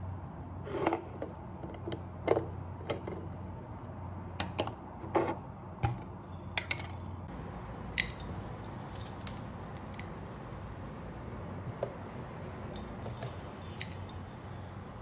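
A glass jar handled on a wooden counter, giving several sharp knocks and clicks. Then dried rose buds are dropped by hand into a plastic tea filter, landing with light scattered taps.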